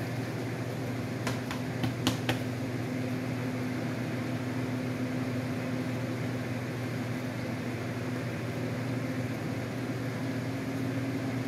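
Steady mechanical hum of a fan-like machine running in the room, with a few light clicks and taps about a second or two in as the cardboard panel carrying the heat cable is handled.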